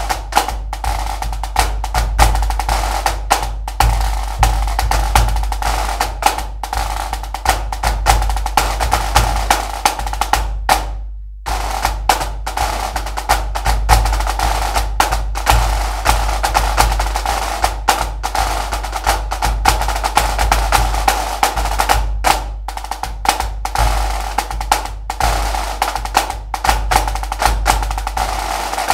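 Music track driven by fast, busy drumming. It fades out briefly about eleven seconds in, then starts again abruptly.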